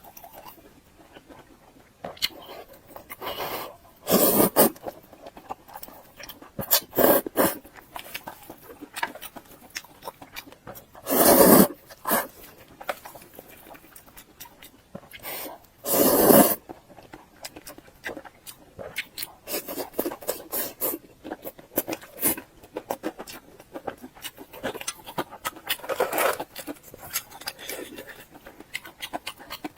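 Close-miked eating sounds: a string of small wet chewing and mouth clicks, broken by four louder bites or crunches, each about half a second long.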